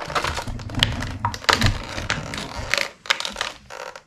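Clear plastic blister tray from action-figure packaging crackling and clicking as it is handled, in a quick irregular string of sharp clicks with a short lull near the end.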